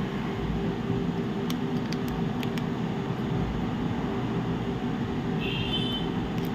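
Steady mechanical background hum with a low droning tone, and a few faint clicks.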